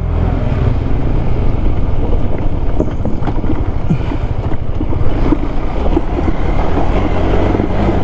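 KTM 390 Adventure's single-cylinder engine running at low speed as the motorcycle rides over a loose gravel and dirt track, with scattered clicks and knocks from stones and the rough surface.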